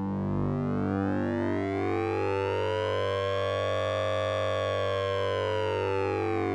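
Synthesized sound effect: a steady low drone under a cluster of tones whose upper harmonics slowly sweep up and back down in a wide arch, peaking about four seconds in, in a siren-like way.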